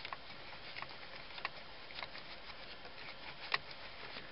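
Faint, irregular light clicks and ticks of a Torx bit being turned by hand, driving a screw into a plastic steering column cover. There is one sharper click about three and a half seconds in.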